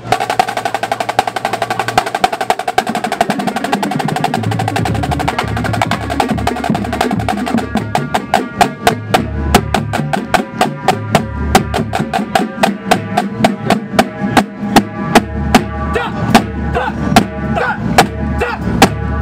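Drum corps battery on Yamaha marching drums warming up together: snare drums, tenor drums and a line of pitched bass drums. It opens on dense, rapid snare strokes. About four seconds in, the bass drums come in, stepping between different pitches, and from about eight seconds the line plays a run of crisp, evenly spaced accented strokes.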